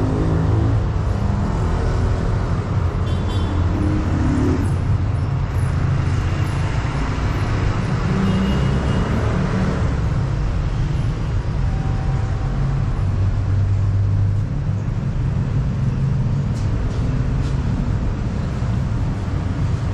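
Vespa scooter engine running under way, mixed with a steady low wind rumble and road and traffic noise.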